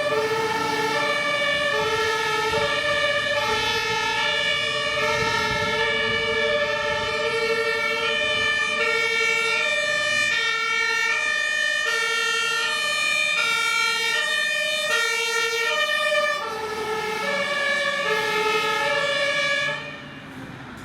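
German fire engines' two-tone siren (Martinshorn) sounding the alternating high-low 'tatütata', each note lasting about two-thirds of a second. About three-quarters of the way through the level dips a little and the pattern shifts, and near the end the siren falls away sharply.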